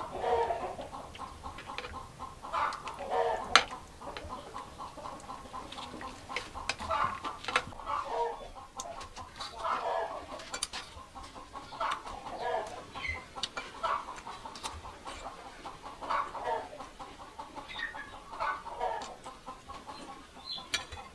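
Chickens clucking in short, repeated calls every second or two, with a few sharp clicks in between.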